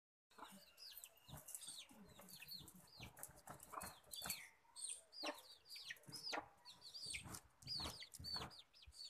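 Chicks peeping constantly, many short high calls that fall in pitch, several a second, with occasional lower hen clucks among them.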